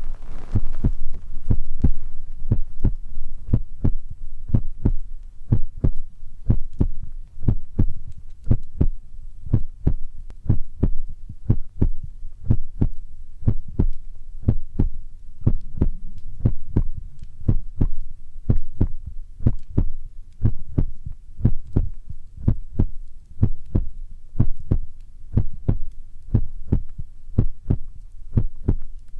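ASMR trigger sound: soft, low thuds repeating about two a second in a steady, heartbeat-like rhythm.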